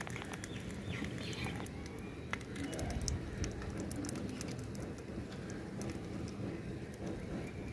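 Tulsi kashayam boiling in a brass pot on a small wood-fired clay stove: a steady low bubbling with many scattered small pops and crackles. Metal tongs grip the pot to take it off the boil.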